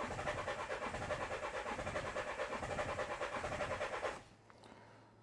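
Renault 1.5 dCi K9K diesel engine being cranked over on the starter motor without starting, with a steady, rhythmic pulsing of compression strokes. The cranking stops abruptly about four seconds in, leaving a faint low hum.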